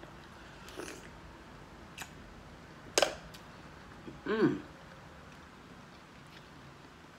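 Close-miked mouth sounds of a person eating with her fingers: a few sharp wet smacks and sucking clicks, the loudest about three seconds in, then a short hummed "mm" that rises and falls just after four seconds.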